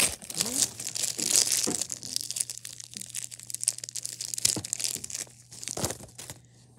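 Crinkly paper wrapping being torn and crumpled by hand to unwrap a small squishy toy, a dense crackling that stops about six seconds in.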